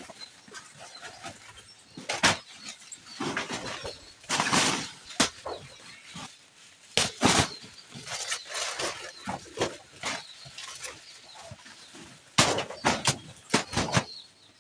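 Irregular rustling crashes and knocks of banana plants being cut and pulled down by hand, with louder bursts about four seconds in, about seven seconds in, and near the end.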